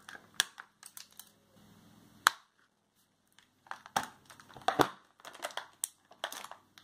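Scissors snipping the twist ties on a toy's clear plastic packaging tray, with the plastic crinkling as it is handled: scattered sharp snips and clicks, the loudest about two seconds in, then a busier run of clicks and rustling in the second half.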